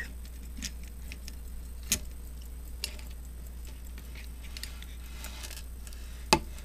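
Elgin pocket watch and its chain being handled: a few scattered small metallic clicks and clinks, the sharpest near the end, over a steady low hum.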